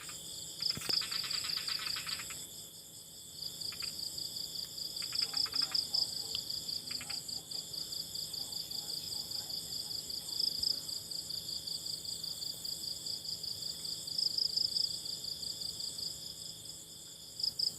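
Crickets trilling in a steady, rapidly pulsing high-pitched night chorus, with a lower rasping trill joining a few times in the first seven seconds.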